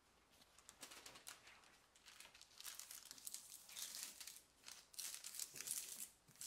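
Parchment paper crinkling and rustling as hands smooth and press it into a fluted ceramic tart dish: a string of short, soft scrunches that grows louder about halfway through.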